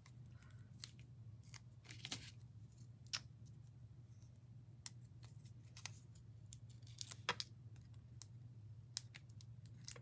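Scattered soft clicks and ticks of fingers handling small paper pieces and peeling the backing from adhesive foam dimensional pieces, over a low steady hum.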